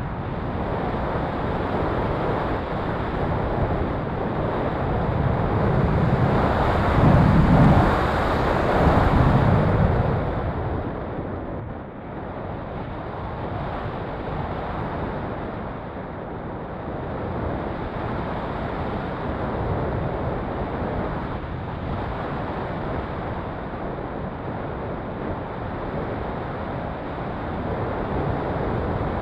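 Wind rushing over the microphone of a camera riding on a gliding RC sailplane, a steady noise with no motor whine. It swells louder between about six and ten seconds in, then eases.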